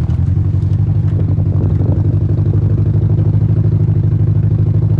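Car engine running steadily with a low, even drone and a fast, regular pulsing beat.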